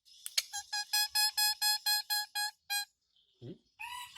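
Javan myna mimicking an electronic beep: a quick run of about ten evenly spaced beeps on one steady pitch, about five a second. Near the end it breaks into a harsh, drawn-out call.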